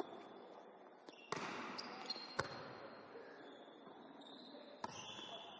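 Volleyball being played: a few sharp slaps of hands and forearms on the ball, spread over the few seconds, each ringing briefly in a large sports hall.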